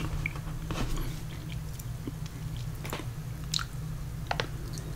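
A plastic candy bag crinkling as it is handled and turned over, with chewing of candy. The sound is scattered short crackles and clicks.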